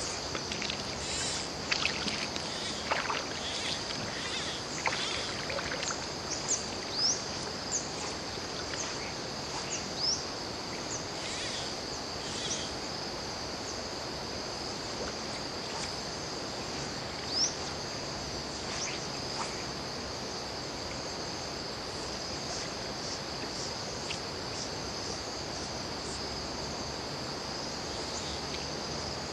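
A steady, high-pitched chorus of insects trilling, with a few short, rising chirps in the first half.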